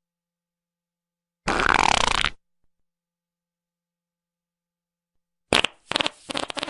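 Short comic sound effects cut in against dead silence: a sound just under a second long with a wavering, gliding pitch, then, near the end, a sharp burst followed by rapid crackling.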